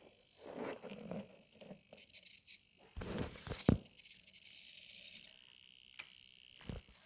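Scattered small clicks, knocks and rustles from handling a LEGO and Arduino robot arm and its joystick controller, with the loudest burst about three seconds in, ending in a sharp click.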